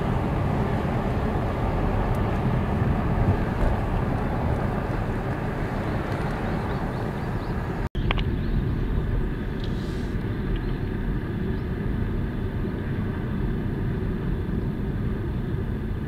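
Steady road and engine noise of a car driving, heard from inside the cabin, with a brief drop-out about halfway through where the recording cuts.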